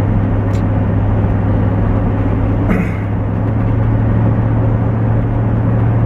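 Tow vehicle's engine and road noise, heard from inside the cab while driving: a steady low hum over rumble that rises slightly in pitch about halfway through.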